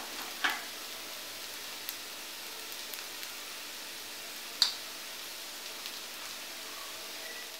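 Clams frying in oil in a cast-iron kadai, settling to a faint, steady sizzle with scattered small pops, the sharpest about four and a half seconds in, as the hot pan cools with the flame off.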